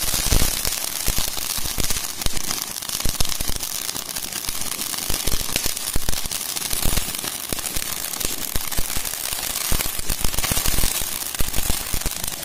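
Ground fountain firework (an anar, or flowerpot) spraying sparks: a dense, continuous crackling hiss.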